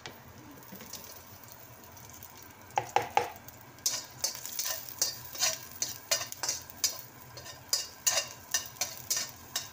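A metal spatula scraping and clinking against a wok as sliced garlic is stirred in hot oil, over the sizzle of the frying. A few sharp clinks come about three seconds in, then quick repeated scraping strokes, two or three a second.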